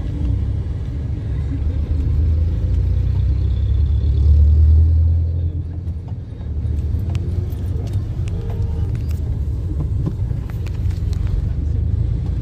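Low rumble of a car's engine and road noise heard inside the cabin while driving in traffic. It swells louder about four seconds in and eases off around six seconds, with scattered light ticks after that.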